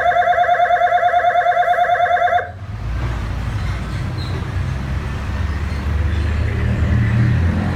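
Electronic vehicle siren sounding a rapid pulsing tone, about ten pulses a second, that cuts off abruptly about two and a half seconds in. After it, a steady low vehicle engine and road noise carries on.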